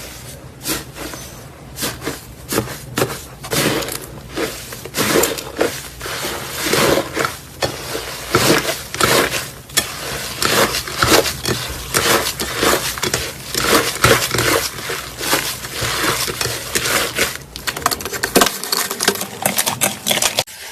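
Slime being squeezed and pressed, giving a dense, irregular run of crackling, popping clicks.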